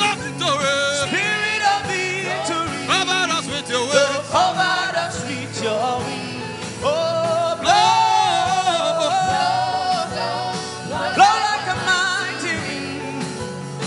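Gospel worship song: a voice singing long, drawn-out sung lines over instrumental backing.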